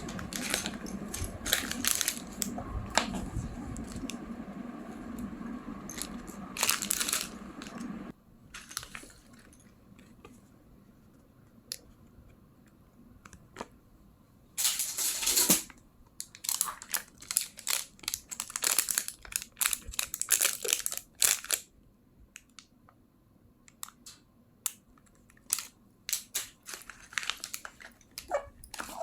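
Hands handling the plastic packaging of a capsule building-block toy, with crinkling and tearing and scattered small clicks. A steady background hum under the first part cuts off suddenly about eight seconds in.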